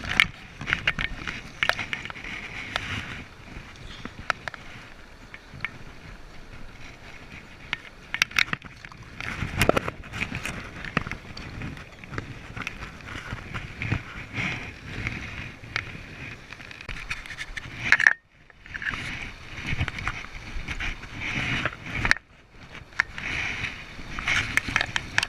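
Steady rushing of a river, with frequent sharp clicks and scrapes of fishing tackle being handled close to the microphone. The sound drops out abruptly twice, about 18 and 22 seconds in.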